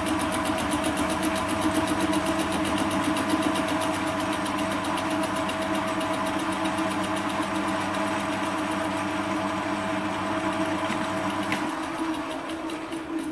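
Metal lathe spinning a faceplate fly cutter at 460 RPM through a facing cut, the single cutter striking the work in a fast, even ticking of about eight a second over the steady running of the motor and gearing. Near the end the motor stops and the sound dies away.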